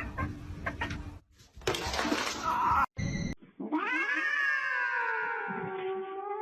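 A cat's long drawn-out yowl, rising quickly and then slowly sinking in pitch, starting a little past halfway through. Before it come a few short cries and a brief stretch of noise.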